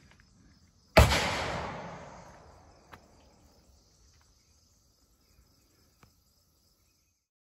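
A single loud bang about a second in, its echo fading away over about two seconds, over a faint steady insect buzz.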